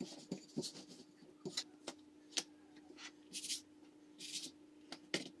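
Wooden rolling pin working thin, floured dough on a countertop: a string of light knocks and taps, then a few soft rustling swishes as the thin dough sheet is lifted and handled by hand.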